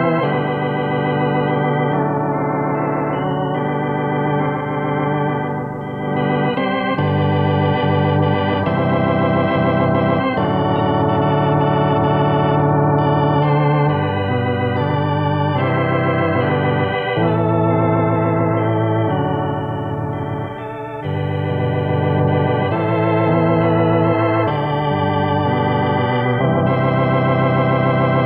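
Hammond organ playing a gospel hymn in full, sustained chords that change every second or two, picked up by microphones set close to its speaker cabinet.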